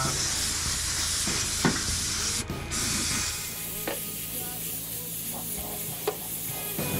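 Compressed-air paint spray gun hissing as paint is sprayed, with a short break when the trigger is let off about two and a half seconds in. The spraying stops about three seconds in, leaving a quieter low steady hum.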